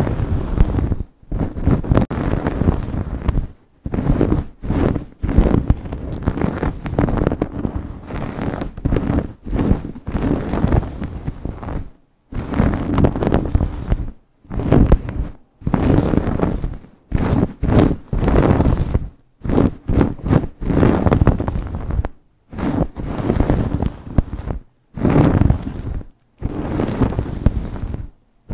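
Long fingernails scratching and rubbing fast through hair against the scalp: dense rustling and scratching in bursts, cut by several short, abrupt silences.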